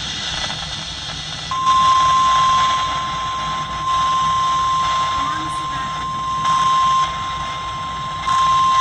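NOAA Weather Radio warning alarm tone: one steady high tone at a single pitch that starts about one and a half seconds in and holds, over radio hiss. This tone marks an incoming warning, here a severe thunderstorm warning.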